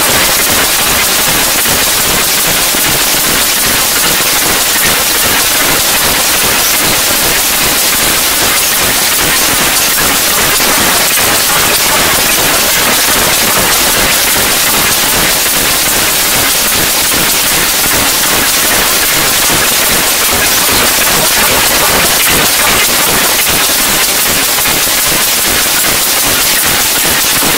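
Loud, steady hiss of static-like noise spread evenly across all pitches, with no music, beat or voice in it.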